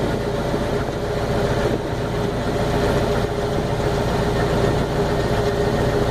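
A small ferry boat's engine running steadily under way, a constant low drone with a steady hum over it.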